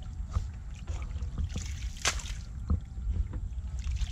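Water splashing and sloshing, with several short sharp splashes over a steady low rumble.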